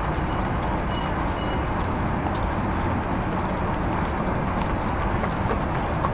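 Bicycle bell rung briefly, a quick few high, ringing strikes about two seconds in, over a steady background hiss of street noise.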